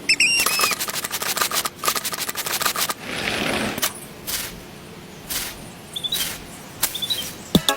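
Quick sharp clicks and taps of small hard objects, with a brief hiss-like scrape about three seconds in.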